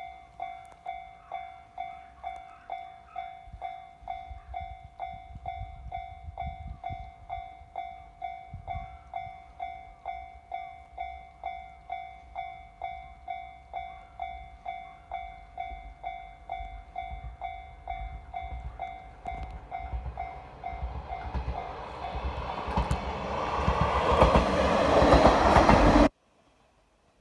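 A level-crossing warning bell rings about twice a second while KiHa 40 diesel railcars approach. Their engine and wheels on the rails grow steadily louder until the train passes close and drowns out the bell, and the sound cuts off abruptly near the end.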